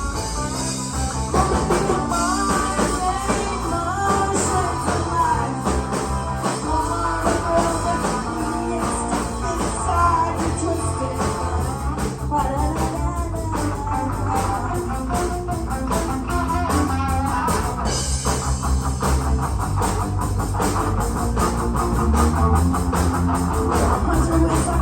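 Live rock band playing: electric guitar, bass and drum kit, with some singing.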